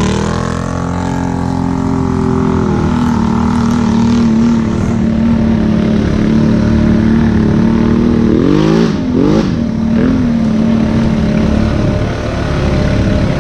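ATV engine running steadily after picking up at the start, then revved up and down a few times about nine seconds in.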